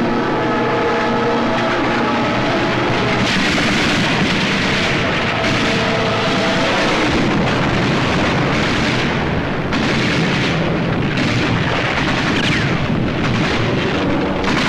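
Battle sound effects on an old film soundtrack: a dense din of explosions and gunfire, with separate sharp shots or blasts standing out in the second half. An orchestral score fades under the noise in the first few seconds.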